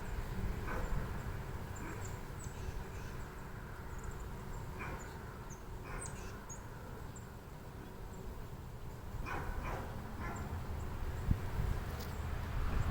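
Wind rumbling on the microphone over the steady hum of honeybees on an open hive frame, with a few short, high chirps scattered through.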